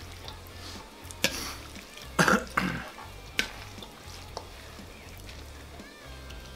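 A fork stirring and lifting a heap of sauced fettuccine in a large stainless steel mixing bowl. There are a few sharp clinks of the fork on the metal, and a louder rough burst about two seconds in.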